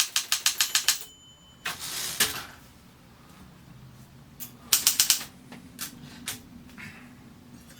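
Consul 224 portable typewriter keys striking in a fast run, about ten strokes a second, that stops about a second in. A short rushing slide follows, then a second brief cluster of strikes near the middle and a few lighter knocks.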